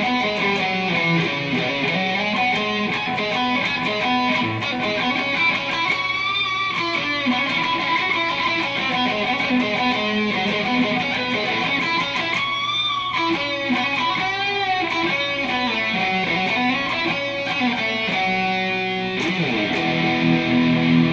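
Fender Telecaster electric guitar played through a Marshall amp: a single-note riff with string bends and vibrato, then a freshly picked chord about 19 seconds in that rings on to the end.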